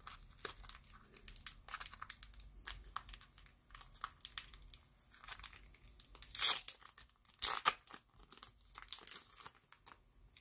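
Clear plastic card bag crinkling as fingers work it open to get at the baseball cards inside, with many small crackles and two louder rips about two-thirds of the way through.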